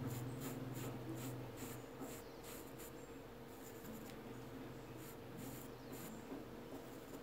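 Dry flat paintbrush dabbing and stroking pastel powder onto the percale fabric of a cloth doll's face: soft, scratchy brush strokes about three a second, pausing midway and then resuming, over a faint low hum.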